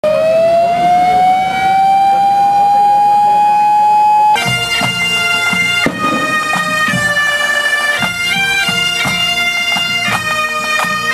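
A single long held tone slides slightly up in pitch and holds. About four seconds in it cuts to a band of Asturian bagpipes (gaitas) playing a tune over a steady drone, with drum beats.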